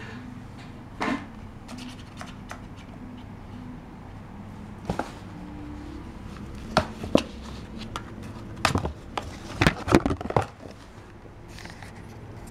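A ginger kitten pouncing at a string toy and a small paper carton box, knocking and scuffing the box across a carpet: scattered sharp taps, then a busy cluster of knocks and scrapes from about seven to ten and a half seconds in.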